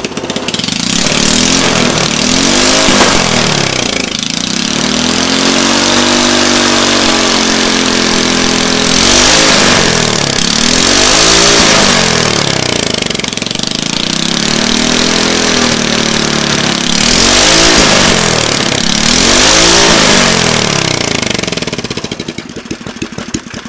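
Briggs & Stratton single-cylinder small engine running on a nitromethane fuel blend, its throttle blipped again and again. The engine speed climbs and falls back about six times, one rev held for several seconds, and the sound dies away near the end.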